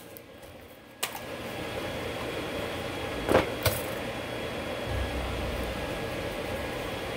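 Steady, even mechanical hum of shop background starting about a second in, with two sharp knocks close together about three seconds later and a brief low thump after them.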